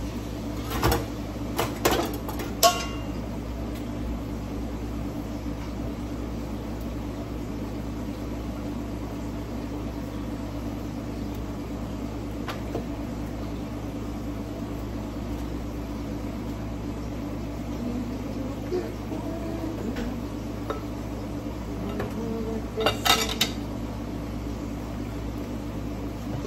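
Knocks and clinks of plantains and a kitchen knife being set down on a ceramic plate: a few near the start, one ringing briefly, and a cluster of clinks about three-quarters of the way through. A steady low hum runs underneath.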